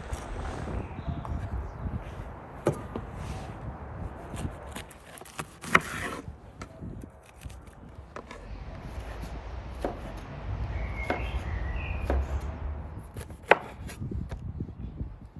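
A knife cutting green bell pepper on a wooden cutting board: the blade slices through the pepper and knocks sharply on the board at irregular intervals, loudest about halfway through and again near the end.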